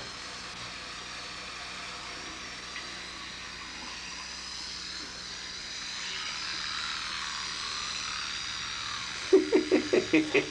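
Battery electric toothbrush running with a steady high whine that grows a little louder about halfway through. Near the end comes a quick run of louder, evenly spaced pulses, about eight a second.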